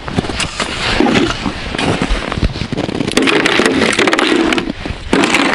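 A hand ice auger being lifted and stowed in a plastic sled box: clattering, scraping and knocking of metal against plastic and ice. A run of rapid sharp clicks and crackle comes about three seconds in.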